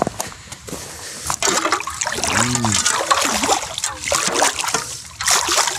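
A shovel chopping and sloshing in an open hole in pond ice, water splashing and slopping in quick irregular strokes as slush and thin new ice are cleared. The splashing starts about a second in and stops shortly before the end.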